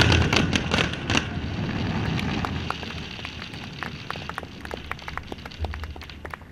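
Fireworks: a rapid volley of loud bangs in the first second or so, then a dense crackle of many small pops that thins out and fades.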